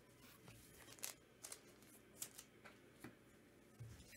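Faint, scattered clicks and light rustles of trading cards and sealed foil packs being handled and set down on a table.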